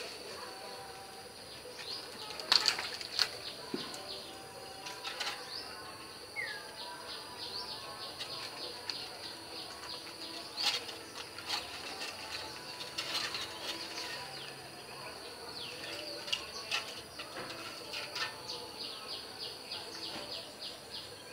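Small birds chirping in short, quick high notes, with a brief falling whistle and a few louder chirps about two and a half to three seconds in, over a faint steady insect drone.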